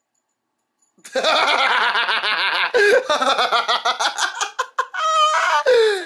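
Loud, prolonged laughter in quick pulses, starting about a second in.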